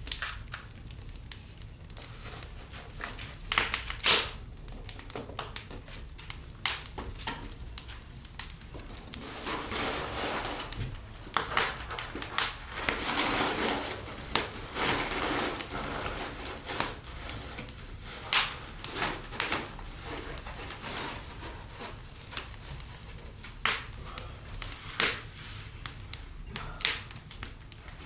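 Foil heat-reflector sheet crinkling and rustling as it is handled and fitted, with scattered sharp clicks and knocks.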